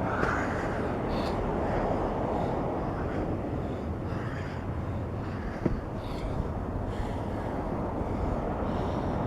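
Steady low outdoor background noise with faint, scattered soft rustles and a small click about two-thirds of the way through.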